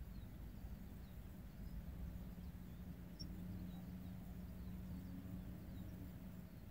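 Faint outdoor background: a low rumble with a steady low hum, and a few faint, short high chirps from birds.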